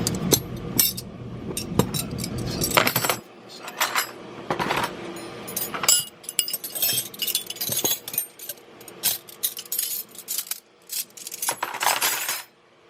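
Metal hand tools clinking and clattering against each other as they are rummaged through in a toolbox, with many sharp clinks. A low rumble under the first three seconds cuts off suddenly.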